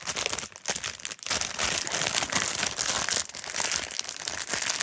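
Plastic toy packaging bag crinkling and rustling steadily as it is handled and pulled open by hand.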